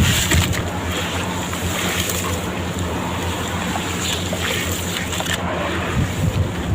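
Sand-cement blocks crumbling in water: a steady watery hiss with small crackles as the soaked blocks break apart.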